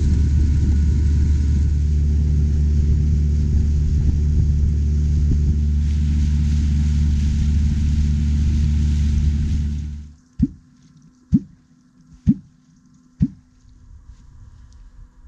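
Small outboard motor running steadily at speed, with water rush from the boat's wake; it stops abruptly about ten seconds in. Then four short, low plops with a quick rising pitch come about a second apart.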